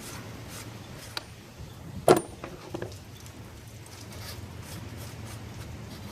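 Handling noises from the Jeep 3.6 V6's oil filter housing cap and cartridge filter being worked out: a few light clicks and one sharp knock about two seconds in.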